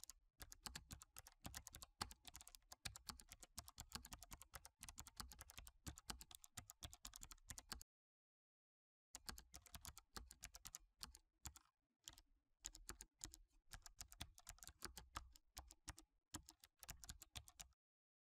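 Faint, rapid, irregular clicking, like keys being typed. It comes in two runs, with a dead-silent break of about a second some eight seconds in.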